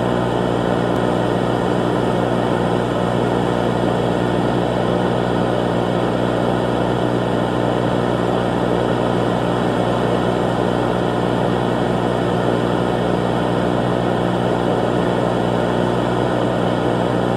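A steady, unchanging low drone with a hiss over it, holding the same pitch and loudness throughout.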